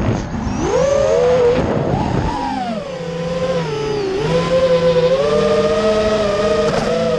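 FPV racing quadcopter's four Emax RS2306 2400kv brushless motors spinning Dalprop Cyclone 5-inch tri-blade propellers, picked up by the onboard action camera: a whine that rises and falls with throttle. It climbs sharply about a second in, dips briefly near the middle, then holds, with a rush of wind over the microphone at the start.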